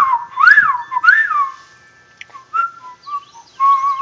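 A person whistling bird-like calls: three loud rising-and-falling whistles in the first second and a half, then softer, shorter warbling notes.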